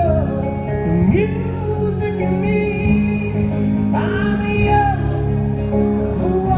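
Live rock duo performing: two amplified guitars playing chords under a man's lead vocal, which slides up into long held notes about a second in and again about four seconds in.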